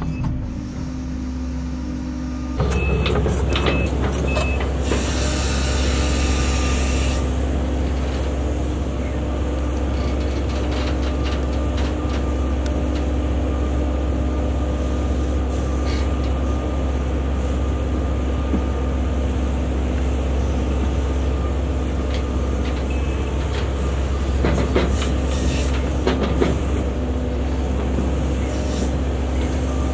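Case CX130D long-reach excavator's diesel engine running steadily under working load as the hydraulics move the arm and bucket, heard from inside the cab for the first couple of seconds and then from outside the machine. A hiss lasts about two seconds a few seconds in, and a few sharp knocks come near the end.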